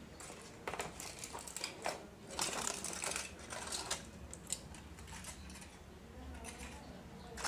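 Crispy fried chicken crunching as it is bitten and chewed: a run of sharp crackling crunches, densest about halfway through.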